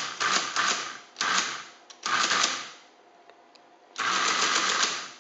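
1956 Friden STW-10 electromechanical calculator with its motor-driven carriage shifting, in bursts of rapid mechanical clatter: three short runs in the first three seconds, then a longer one about four seconds in. The carriage shift is working.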